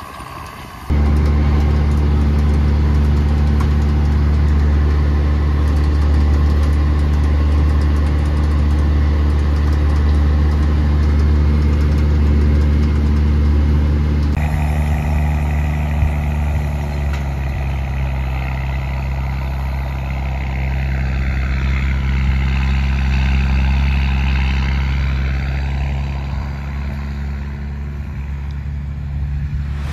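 John Deere 7810 tractor's six-cylinder diesel engine running steadily while pulling a planter across the field. The engine sound cuts in abruptly about a second in and changes character about halfway through.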